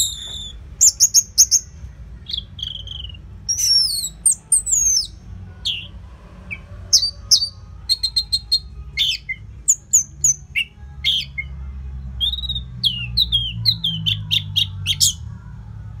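Orange-headed thrush singing loudly: a rapid, varied run of sharp whistles, chirps and short trills, many sliding down in pitch, in quick phrases with short pauses between them.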